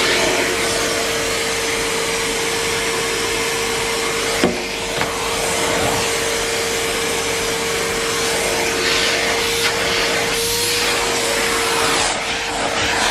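Numatic Henry Pet vacuum cleaner running steadily, a rush of suction with a constant motor whine, and a single knock about four and a half seconds in.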